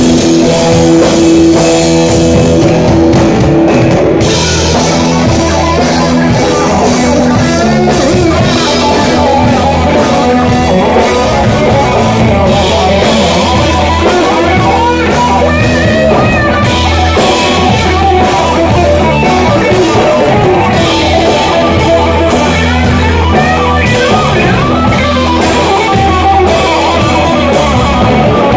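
Three-piece rock band playing loud, live: electric guitar, electric bass and drum kit.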